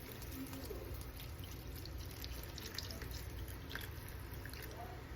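Chicken broth in a pot with flour-coated vegetables, making liquid sounds with scattered small pops and drips over a steady low hum.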